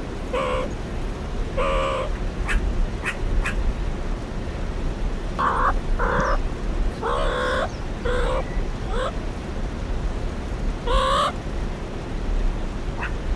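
Meerkats giving short chirping calls, about nine in irregular bursts, some in quick pairs, with a pause before a last call near the end. A few faint clicks and a steady low rumble lie underneath.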